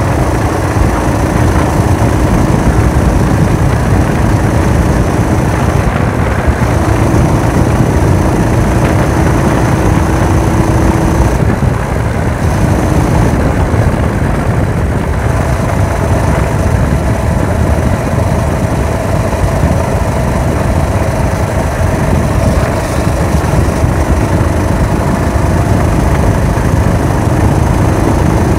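Small engine of a motorized chopper bicycle, fitted with a fibre-packed muffler, running steadily while the bike cruises along, mixed with heavy wind rumble on the handlebar-mounted camera's microphone.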